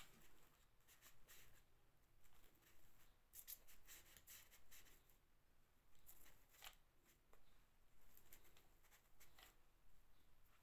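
Faint, scattered small clicks and rustles of hands handling fabric flowers and a glue gun while gluing them onto a foam base.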